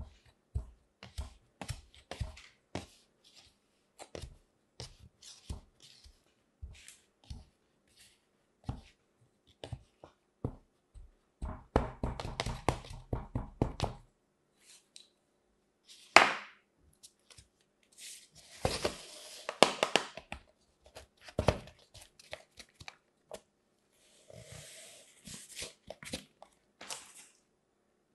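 Kinetic sand being packed into a cup with a wooden tamper: a long series of short, soft thuds, with a quick run of taps about halfway through. In the later part come several longer gritty scraping sounds of the sand being worked.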